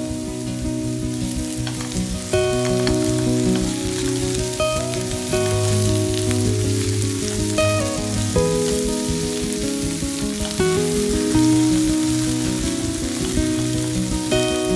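Diced potatoes and onions sizzling in a nonstick pan and being stirred with a spatula. Background music of held notes that change every second or two plays over it.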